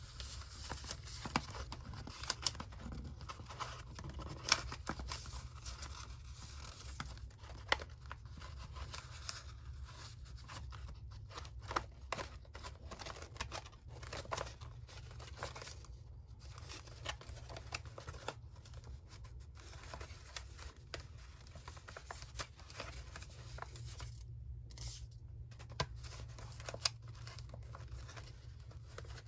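Paper being handled for a collage: tearing, scissor snips and crinkling, with many irregular short clicks and scrapes over a steady low hum.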